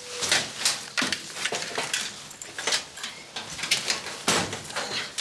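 Metal lockers being packed: irregular clicks and knocks of doors and gear against the metal, with rustling of bags and clothing.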